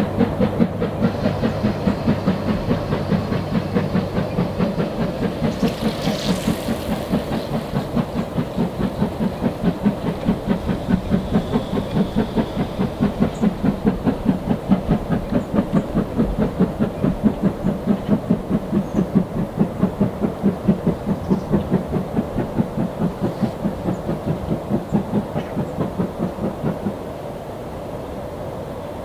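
Steam-hauled heritage train running: a steady, quick rhythm of beats, about five a second, with a hiss. The rhythm cuts off abruptly near the end, leaving a lower steady background.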